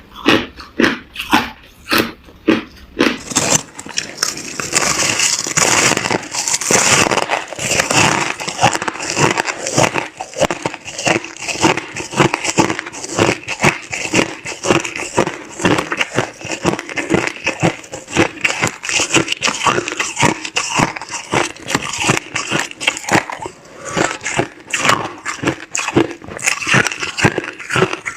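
Clear crushed ice crunched between the teeth close to the microphone: separate bites a few times a second at first, a dense run of crunching a few seconds in, then steady repeated crunching.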